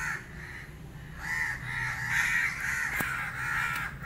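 Crows cawing: a harsh call near the start, then a quick run of repeated caws through the second half. A sharp click about three seconds in.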